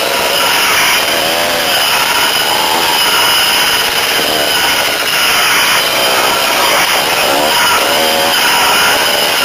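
Dirt bike engine revving up and down while riding a rough trail, its pitch rising and falling every second or two.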